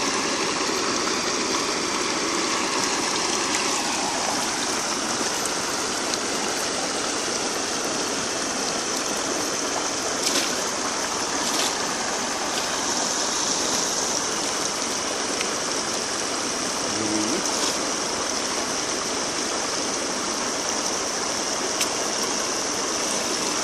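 Steady rush of water flowing through a bamboo fence weir, with a few faint clicks.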